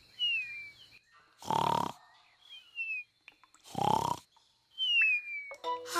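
Cartoon snoring of a sleeping ladybird: rasping snores that rise in pitch on the in-breath, each followed by a thin falling whistle on the out-breath, repeating about every two seconds.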